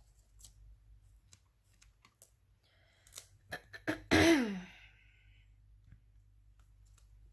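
Light clicks and taps of paper handling, then a loud cough about four seconds in, its voiced tail dropping in pitch.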